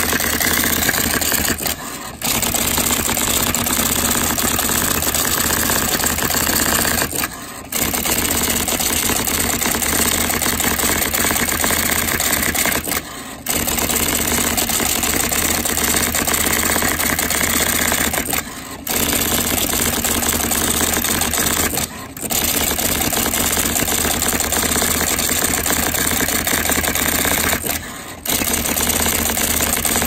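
IBM Electronic Typewriter Model 85 playing back a stored document on its own, its Selectric-style type ball striking characters in a fast continuous rattle. The rattle breaks off briefly six times.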